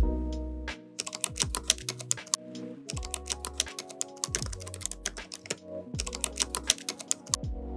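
Computer keyboard typing clicks in three quick runs of about a second each, over background music with a bass line.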